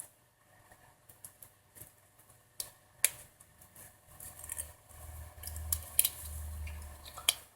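Small, sharp clicks and ticks of a smartphone's mainboard and display flex cable being handled and fitted into the plastic frame, the two loudest about two and a half and three seconds in. A low hum comes in during the second half.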